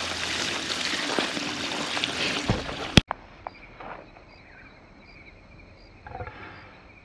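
Water from a garden hose running and splashing into a pig's mud wallow as it fills; it cuts off suddenly about three seconds in with a sharp click, leaving only faint outdoor background.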